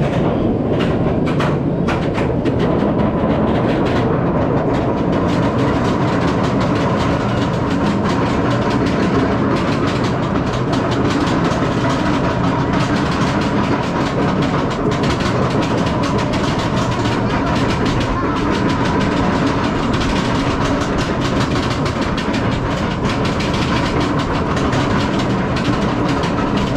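SheiKra dive coaster's train climbing its chain lift hill: a loud, steady mechanical clatter and rattle of the chain and cars, with a faint steady whine underneath.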